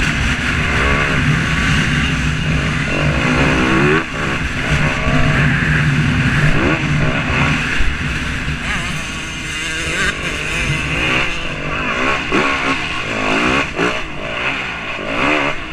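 Several motor vehicle engines running and revving, their pitch rising and falling and overlapping throughout.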